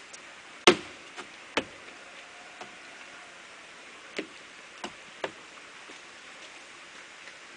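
A handful of sharp, irregular taps or ticks on wood, the loudest near the start, over a steady faint hiss.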